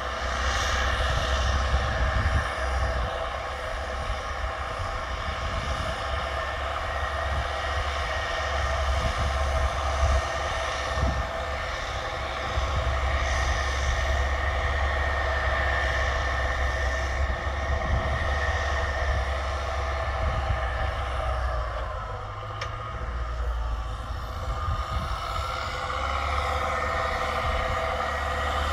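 Belarus MTZ 1025.4 tractor's straight-piped, turbocharged four-cylinder diesel running steadily under load while ploughing, with a turbo whistle over the deep exhaust note that rises near the end.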